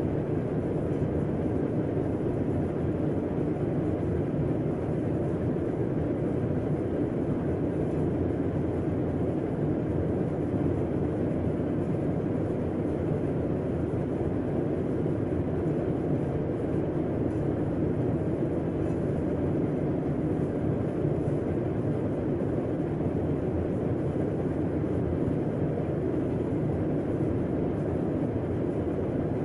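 Air conditioner running steadily: a constant low hum and rush of air that does not change.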